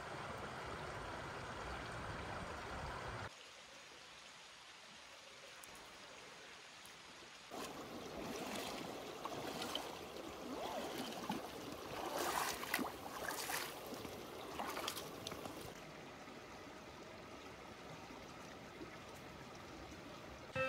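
A shallow mountain creek running over stones, trickling and gurgling, with a busier, uneven stretch of gurgling from about seven seconds in to about sixteen seconds.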